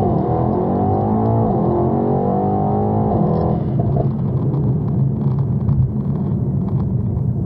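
Tuned twin-turbo V8 of a Mercedes E63 S AMG at full throttle under hard acceleration, its note rising, heard from inside the cabin. About three and a half seconds in the throttle closes and the sound falls to a low steady drone with road noise as the car coasts.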